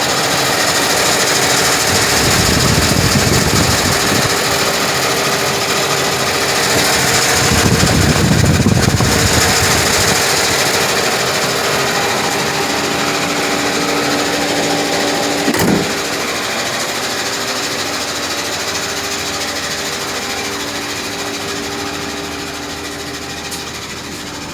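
Running 2007 Chevy Equinox V6 engine with a strange mechanical noise from the engine bay, which the owner blames on a bad starter rather than the water pump. A sharp click comes about two-thirds of the way in, after which the noise is a little quieter.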